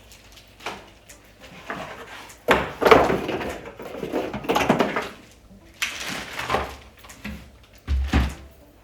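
Cardboard box and plastic wrapping being handled and pulled off, in irregular rustling bursts, with two low thuds near the end as parts are set down.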